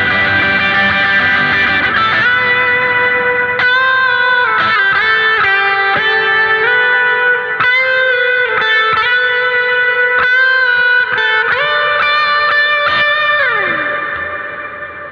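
Electric guitar with humbucker pickups through the NUX MG-30's Morning Drive, a Morning Glory-style overdrive, playing a lead line of sustained notes with bends. About 13 s in, a note slides down, and the sound then dies away.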